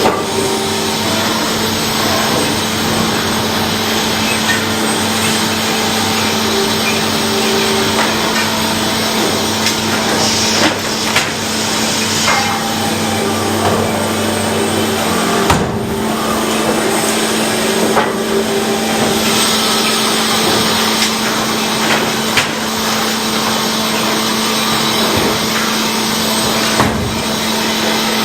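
Sawmill machinery running steadily while sawing lumber, with scattered sharp wooden knocks and clatter. A lower hum drops away about halfway through.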